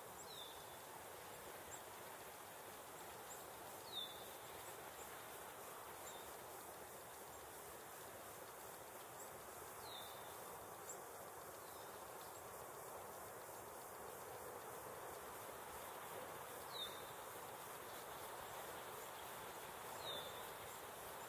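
A bird giving short, high, downward-slurred call notes every few seconds, five times in all, over a faint steady hiss of still winter woods.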